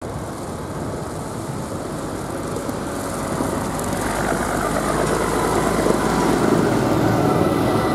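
Backhoe loader's diesel engine running as it drives up on a wet road and passes close by, with tyre noise, growing louder from about four seconds in and loudest near the end.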